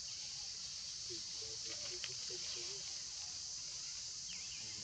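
Steady high-pitched insect chorus, with faint wavering calls from about one to three seconds in and a short chirp near the end.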